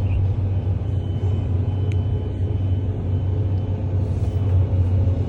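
Volvo excavator's diesel engine running steadily with a low, even rumble.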